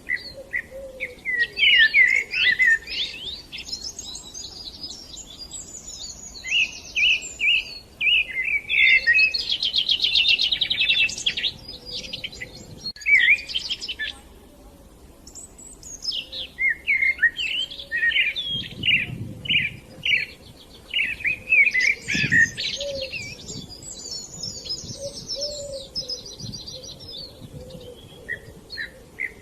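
Songbirds singing a rapid, varied string of chirps, whistles and fast trills in two long bouts, with a brief pause midway.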